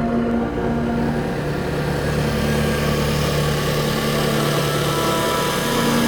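Motor of a radio-controlled construction model running steadily with an even hum.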